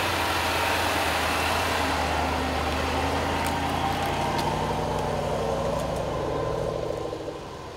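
A 2014 Range Rover Sport's supercharged V8 running at low, steady revs as the SUV crawls along a dirt trail, the drone fading away near the end.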